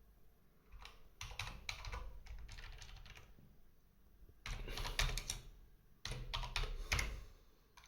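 Typing on a computer keyboard: three runs of keystrokes with short pauses between them.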